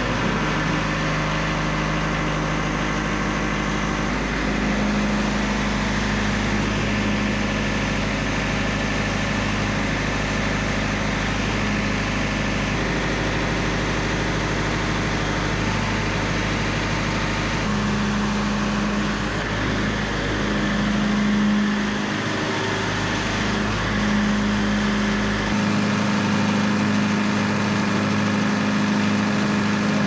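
Wood-Mizer LT70 Super Wide portable sawmill running steadily, its engine driving the band blade through yellow poplar boards being edged. The machine's pitch strengthens and eases a few times as the load changes, and a low rumble drops away near the end.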